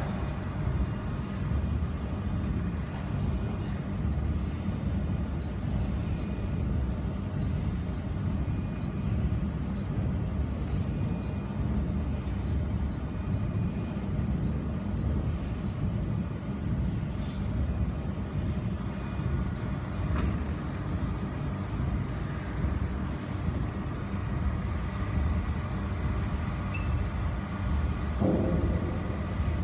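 Steady low hum of running machinery, with faint short high ticks now and then in the first half.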